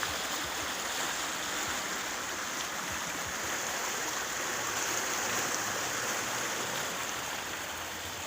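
Rain runoff floodwater rushing past in a steady, churning torrent, "like a turbine".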